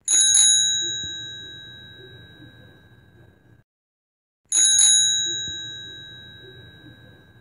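Bicycle bell rung twice, about four and a half seconds apart, each ring a bright metallic ding that fades away over a few seconds.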